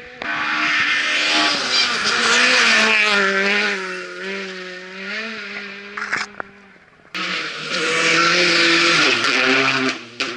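Rally cars passing at speed on a gravel stage: the engine revs rise and fall sharply through gear changes and lifts, over loud hiss from tyres and flung gravel. The first car fades about six seconds in, and a sudden cut brings a second car passing.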